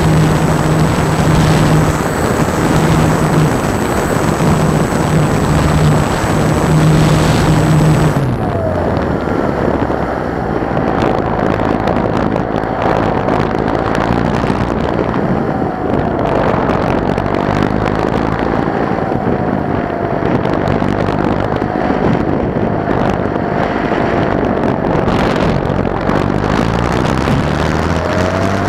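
Electric motor and propeller of a Thermal Rider EP RC glider, heard from an onboard camera: a steady motor hum with a high whine under power, cut about eight seconds in as the throttle goes off. Then wind rushes over the airframe while the propeller freewheels instead of folding, because the motor brake isn't set. Near the end the motor spools up again with a rising hum.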